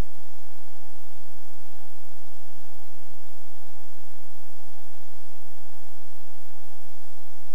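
Light aircraft's engine and propeller running at full takeoff power, heard inside the cockpit as a steady drone with a constant hum and hiss.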